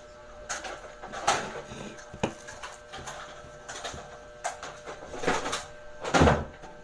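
Hands pulling apart a ripe jackfruit over a plastic bag: scattered short rustles and crinkles as the bulbs are torn from the rind, with a louder bump about six seconds in.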